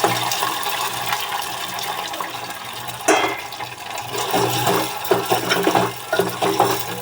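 Soya chaap pieces frying in hot oil in a pan: a steady sizzle that jumps suddenly louder about three seconds in, followed by sharp crackles and spatters.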